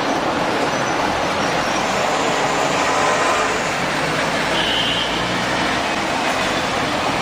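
Steady city street traffic noise, with buses, cars and motorbikes passing below blending into a continuous rumble and hiss.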